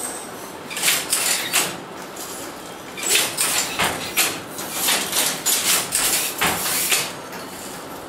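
Wooden jacquard handloom clattering as a weaver works it, in groups of sharp knocks every second or two.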